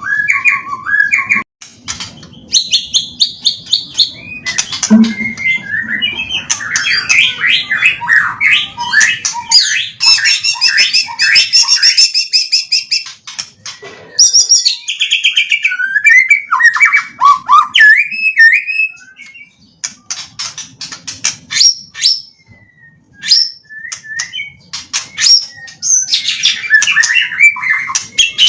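White-rumped shama singing a loud, varied song of rapid trills, chirps, pitch-gliding whistles and sharp clicks, run together from learned phrases, with brief pauses.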